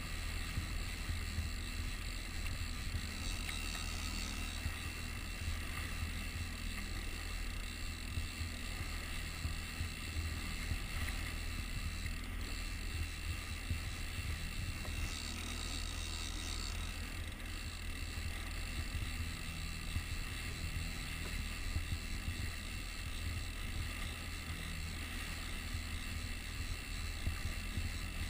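Boat's outboard motor running steadily at trolling speed, a low hum mixed with water rushing past the hull and some wind on the microphone.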